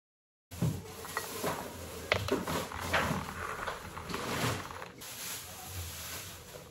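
Light knocks and clicks of things being handled, over steady room noise, starting about half a second in after dead silence.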